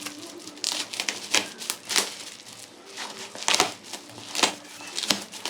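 A parcel being opened by hand: irregular crinkling, tearing and sharp clicking of the packaging as the box is unwrapped.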